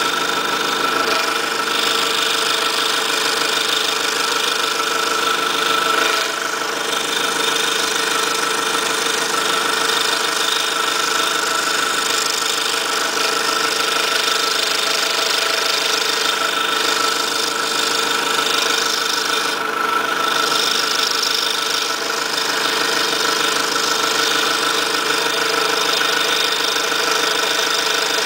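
Scroll saw running steadily, its fine 2/0 blade moving up and down as it cuts through a stack of three layers of 1/8-inch plywood.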